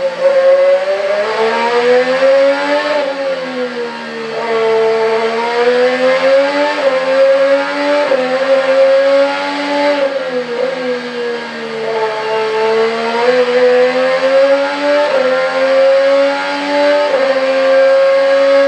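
IndyCar racing engine heard onboard at speed, its high-pitched note climbing and falling repeatedly as the car accelerates down straights and slows for corners, with sudden steps in pitch at the gear changes.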